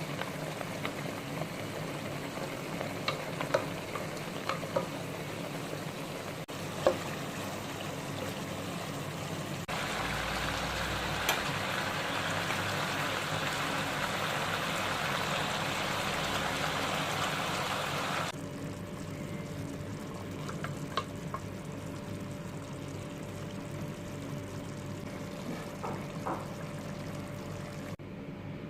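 Chicken adobo sizzling in a pan, a steady frying hiss with a few sharp clicks. The sizzle grows louder and brighter partway through, then drops off abruptly.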